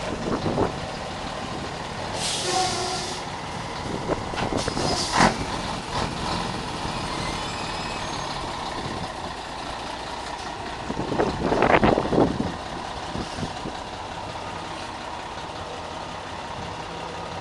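Scania 112 straight-six turbodiesel idling, with the steady whistle of the comb fitted in its turbocharger intake. A short air hiss comes about two seconds in, and a louder burst of noise comes around eleven to twelve seconds.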